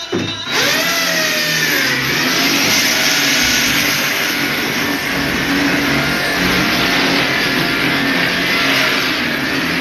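A motor or engine running loudly. It cuts in suddenly about half a second in, with a pitch that falls over the next second or so, then runs steadily.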